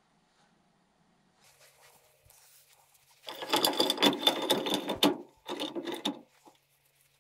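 A cast-iron bench vise being wound by its handle, its screw and sliding jaw giving a rapid metallic clatter. It runs for nearly two seconds, pauses briefly, then comes back for under a second.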